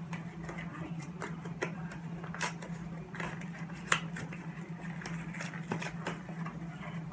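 Scattered small plastic clicks and rustles as a Nerf Fortnite 6-SH toy blaster and its packaging are handled, with one sharper click about four seconds in, over a steady low hum.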